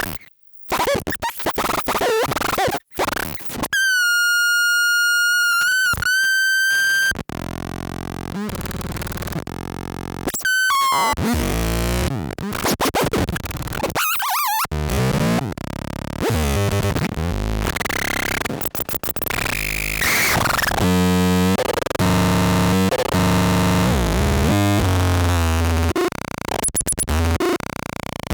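Lefty's Sound Lab "Rumble Noise" analog noise synth and fuzz/distortion pedal making glitchy electronic noise. Choppy bursts with sudden dropouts come first. A steady high tone with a brief wobble follows about four seconds in. From about seven seconds there is dense, buzzy noise whose pitches jump in steps.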